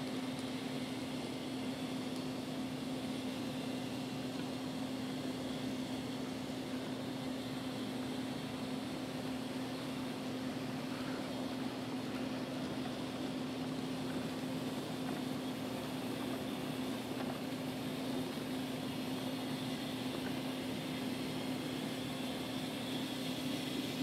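N scale model train running past on its track: a steady hum with one constant tone, unchanging as the stack and piggyback cars roll by.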